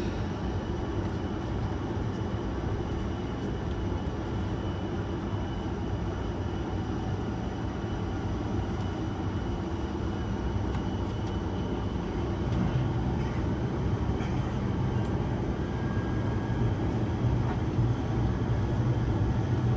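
Steady drone inside the cabin of an ATR 72-600 turboprop airliner, from its Pratt & Whitney PW127M engines and propellers, with a faint high whine over it. The low hum grows stronger and a little louder about two-thirds of the way through.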